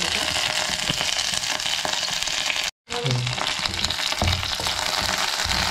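Curry leaves, dried red chillies and mustard seeds sizzling and crackling in hot oil in a non-stick kadai as a South Indian tempering is stirred. The dense spluttering breaks off for a moment about two and a half seconds in, then resumes.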